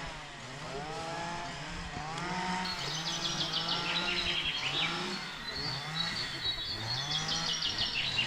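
A small songbird singing fast trilled phrases, starting about three seconds in. Underneath runs a steady stream of low, rising-and-falling pitched sounds.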